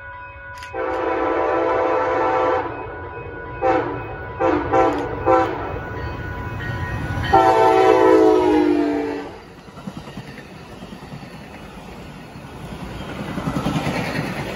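Siemens SC-44 Charger diesel locomotive leading an Amtrak passenger train sounding its horn: a long blast, four quick short toots, then another long blast. The train then passes close by with the rumble and clatter of its wheels on the rails, building near the end.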